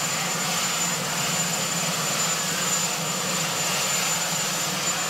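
Marine One helicopter's turbine engines and rotor running steadily, a continuous loud rush with a thin high whine over it.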